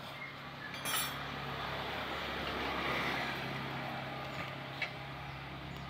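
A passing vehicle's engine, swelling to a peak about three seconds in and then fading, with a couple of light metal clinks from hand tools at a motorcycle wheel.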